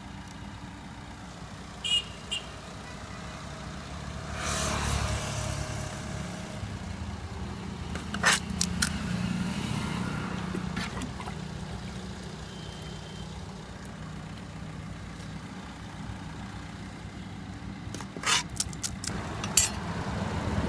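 Street traffic with a steady engine hum, a louder rush of noise about four seconds in, and a few sharp clicks near the middle and again near the end.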